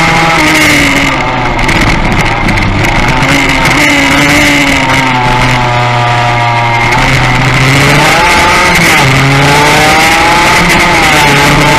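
Racing motorcycle engine heard from onboard at high revs, its pitch repeatedly climbing and then dropping as the rider accelerates, shifts and brakes through the bends, over a steady rush of wind noise.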